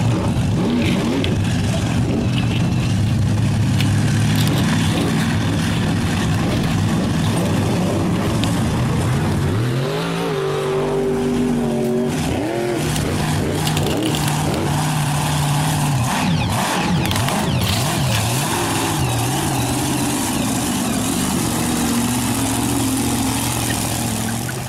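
Car engine sound effect: a steady engine drone that revs up and down, most plainly around the middle.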